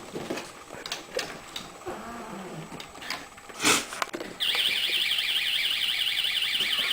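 Light clicks and shuffling, a short loud burst of noise, then a door alarm going off about four and a half seconds in: a loud, high-pitched electronic tone warbling rapidly and steadily.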